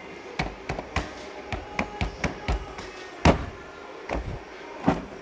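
Irregular light knocks and taps of an 8-inch car subwoofer being pressed and seated into a hole cut in a carpeted cat-house box. The loudest knock comes a little past the middle.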